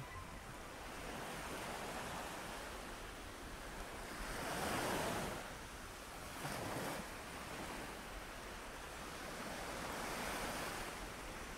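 Ocean surf: waves washing in and drawing back in slow surges, the biggest about five seconds in.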